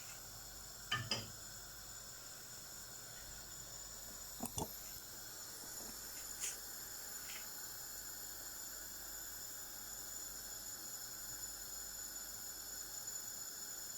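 Pan of seafood paella simmering with a faint steady hiss as the rice cooks in the added liquid, with a few short light clicks: two about a second in and two more a few seconds later.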